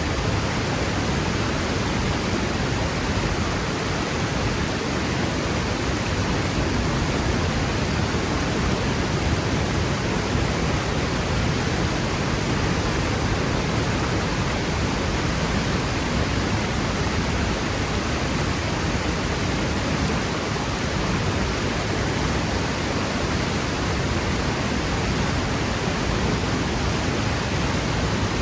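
Waterfall crashing steadily onto rock: an even, unbroken rushing of water that spreads through low and high pitches alike.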